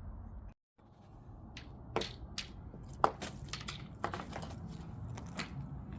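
Irregular crunching clicks and ticks over a low rumble. The sound cuts out completely for a moment about half a second in.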